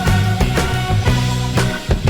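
Background music: an upbeat rock-style track with bass, guitar and a steady drum beat.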